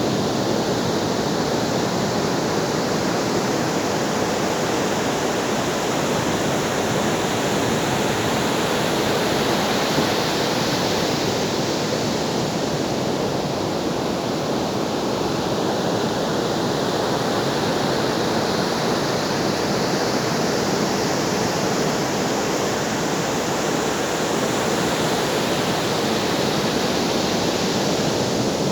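Ocean surf: waves breaking and washing in as a continuous rush, swelling and easing slowly every several seconds.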